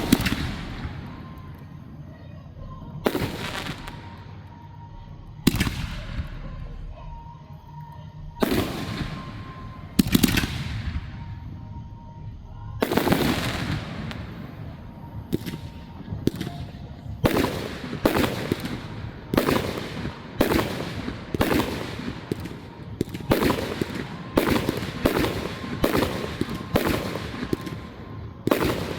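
Aerial firework shells bursting in loud booms with crackling, fading tails: single blasts every few seconds at first, then coming in quick succession, about one a second or faster, through the second half.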